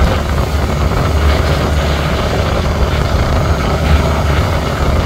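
Fishing boat's engine running at a steady low drone, with a wash of water and wind noise over it.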